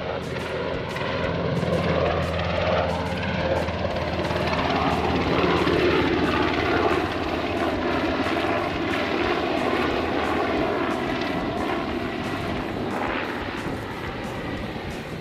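Small propeller airplane flying past, its engine growing louder over the first two seconds, then holding and slowly fading.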